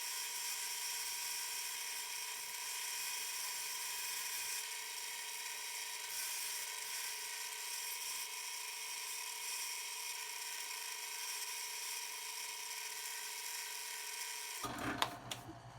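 Drill press running at speed with a steady whine, spinning a wooden workpiece while sandpaper is held against it, adding a hiss. The whine cuts off suddenly near the end, followed by a few sharp clicks.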